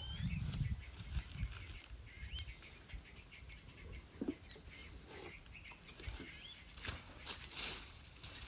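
A small bird calling over and over with short rising chirps. Beneath it come low knocks and clicks of pots being handled in the first second and later, and a rustle of footsteps on dry leaves near the end.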